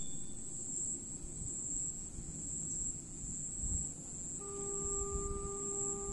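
Steady high-pitched insect drone over a low rumble; about four seconds in, a distant electric locomotive horn sounds one long steady note lasting nearly three seconds, the approaching train signalling.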